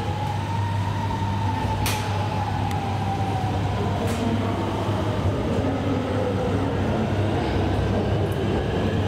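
Hanoi Metro Line 2A electric train heard from inside the car as it pulls away from a station: a steady low rumble, with the electric motor whine sliding in pitch as the train picks up speed. There are a few short sharp clicks.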